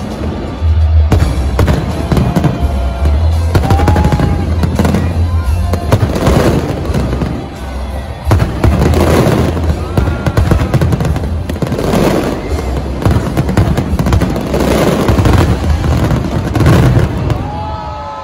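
A fireworks display going off in rapid succession, with dense bangs and crackling over a heavy low rumble, and music playing underneath.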